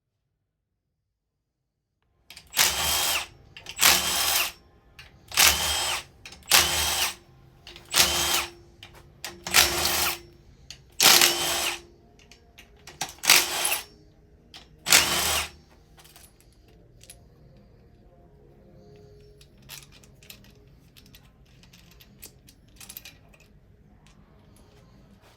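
Power tool run in nine short bursts, about one every second and a half, then faint clinks and handling noises.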